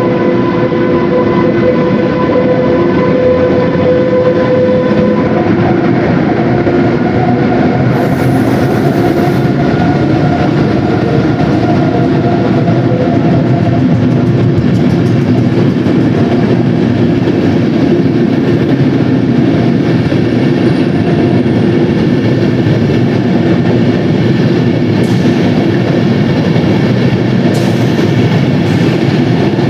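DB class 101 electric locomotive hauling Intercity coaches along the platform. It gives a steady multi-tone whine for the first few seconds, then the coaches roll past with a continuous rumble and wheel clatter, broken by a few brief high hisses.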